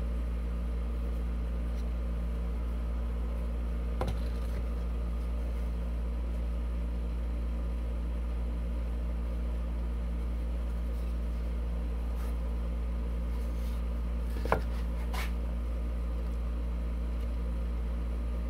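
A steady low hum runs throughout, with a light click about four seconds in and a sharper knock about fourteen and a half seconds in from wood and tools being handled on the bench.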